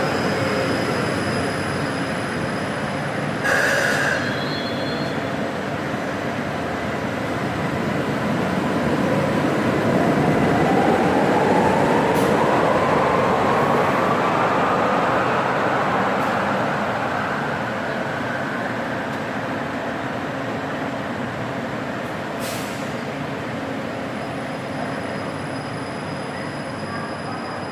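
Stuttgart Stadtbahn light-rail train running past, its electric motor whine rising steadily in pitch as it accelerates. There is a short sharp sound about three and a half seconds in, and a few sharp clicks from the wheels on the rails.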